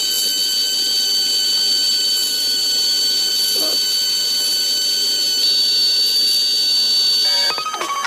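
Small electric motor running a miniature grinder-style juicer through a belt, giving a steady high-pitched whine with a hiss over it. Near the end the whine gives way to a run of short stepped tones.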